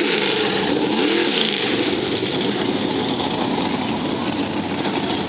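Lifted 4x4 mud truck's engine revving up and down twice as it plows through a mud pit, then running steadily under load as it pulls away.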